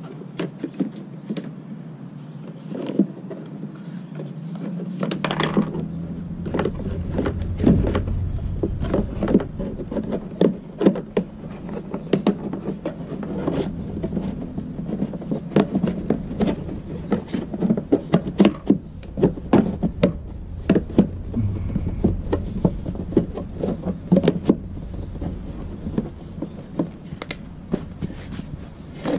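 Plastic line-set cover duct being handled and pushed onto its elbow fitting against a block wall, with many short plastic clicks and knocks. A low rumble runs underneath from about five seconds in.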